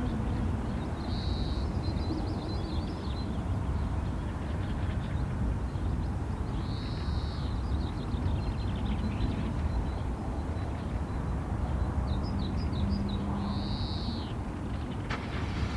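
Wild bird calling in three short bouts a few seconds apart, each a high call with quick trilled notes, over a steady low rumble.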